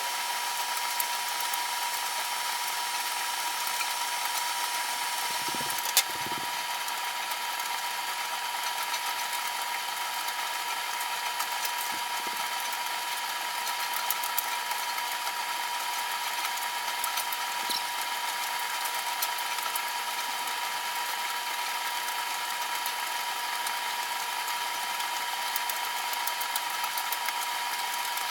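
A steady machine hum with a constant high tone running through it and a few faint clicks.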